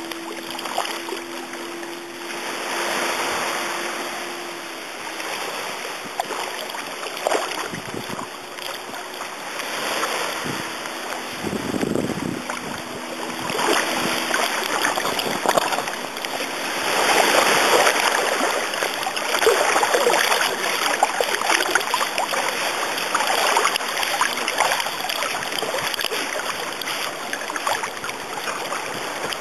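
Shallow seawater splashing and sloshing as a person wades through it and a small dog swims, with small waves lapping.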